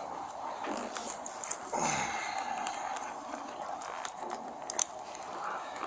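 Clothing rustling and fabric brushing against a body-worn camera during a hands-on pat-down search, with a sharp click about a second and a half in and two quick clicks near the end.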